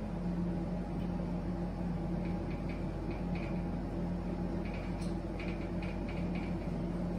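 Whiteboard marker writing in short squeaky strokes, in two spells a couple of seconds apart, over a steady electrical hum in a small room.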